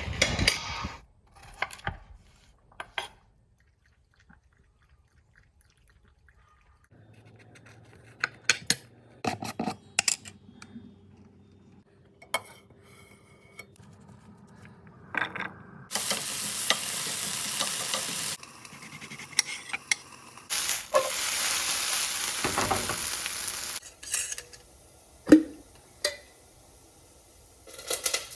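Breakfast cooking in a kitchen: pans and utensils clatter over a steady low hum, with two loud spells of sizzling a few seconds long, as food hits a hot pan, about halfway through and again soon after.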